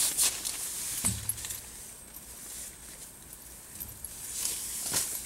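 Rustling of nylon tent fabric and a fleece sleeping bag being handled and pushed inside a small tent. It comes in several bursts, with a soft low thud about a second in.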